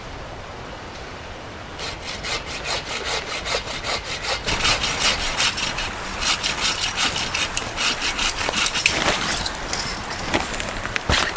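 Folding bow saw cutting through firewood in quick back-and-forth strokes, several a second. The strokes start about two seconds in and get louder partway through.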